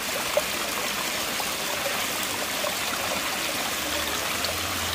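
Steady rush of running water, an even hiss with no break.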